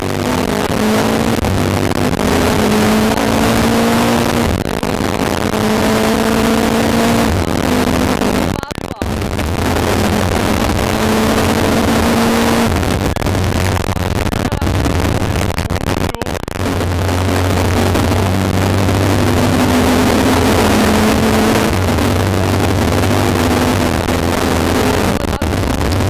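Rally car's engine at hard throttle, heard from inside the cabin: it rises in pitch again and again, with a brief drop several times as the driver shifts or lifts. A loud rushing road and wind noise runs under it, and the sound is distorted.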